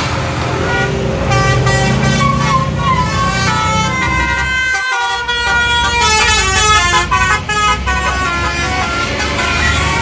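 Basuri telolet bus horns playing quick multi-note melodies, the tones stepping up and down in pitch, over the low run of bus engines. The melody breaks off sharply about halfway through and a second horn tune starts.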